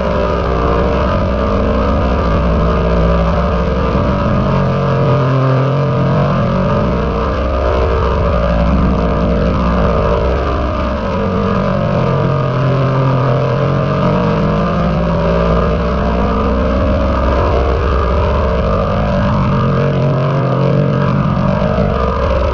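A "G Major" audio edit: one recording layered at several pitches into a chord, making a dense, distorted drone with shifting tones.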